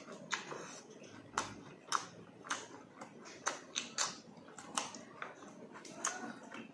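Close-up eating sounds: wet lip smacks and sucking clicks, about one or two a second, as fingers and soft stewed tuna are sucked off in the mouth, with chewing in between.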